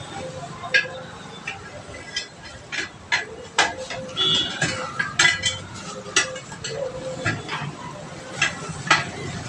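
Iron tyre lever knocking and scraping against a steel car wheel rim as the tyre bead is pried off: a string of irregular, sharp metallic clinks with a short ring.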